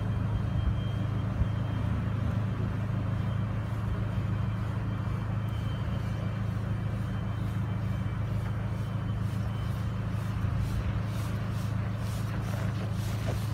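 Road traffic on a snow-covered city street: cars passing over a steady low engine hum. A few short clicks near the end.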